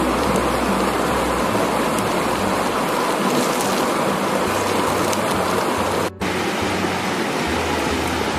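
Caterpillars frying in hot oil in a black pan over a wood fire: a steady sizzling hiss, with a brief break about six seconds in.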